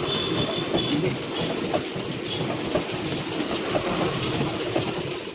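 Hot oil sizzling steadily in a large kadhai as vadas are deep-fried.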